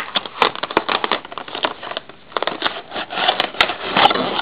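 Clear plastic toy bag crinkling and crackling as it is handled and opened, a dense irregular run of rustles.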